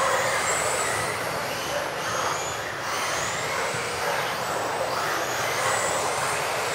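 Several electric off-road RC buggies with modified-class motors racing together: high-pitched motor whines that rise and fall with the throttle over a steady rushing noise.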